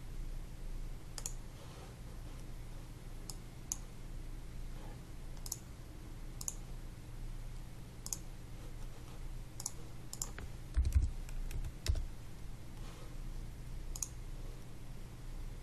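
Computer mouse clicks, one every second or so, with a quick run of clicks or key presses and two low thumps about eleven seconds in, over a steady low hum.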